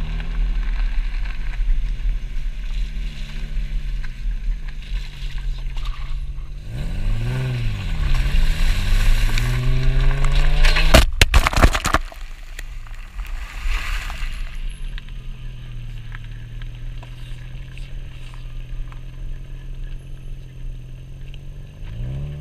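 Vehicle engine driving off-road, revving up and down over a heavy low rumble. About eleven seconds in there is a loud, short burst of noise, and then the engine runs more quietly and steadily.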